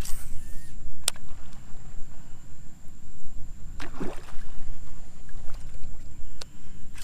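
Low steady water-and-wind rumble around a stand-up paddleboard, with a couple of sharp ticks and a short swishing rush about four seconds in.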